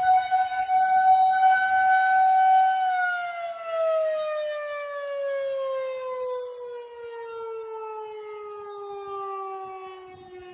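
Federal Signal 2001-130 electromechanical fire siren sounding a steady wail, then winding down about three seconds in, its pitch falling slowly and the sound fading. The volume wavers as gusts of wind carry it.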